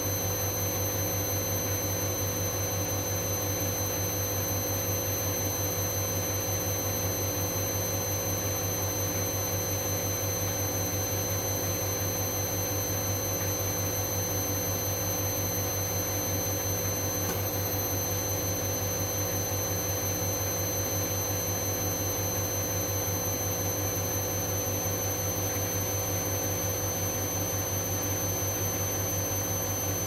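Hoover Dynamic Next washing machine in its final spin, holding a steady high speed: an even hum with fixed high-pitched whine tones from the motor.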